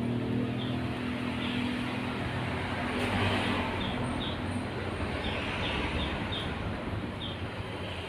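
Javan munias giving short, high chirps, about a dozen scattered unevenly, over a steady rush of road traffic. A low engine hum fades out in the first half.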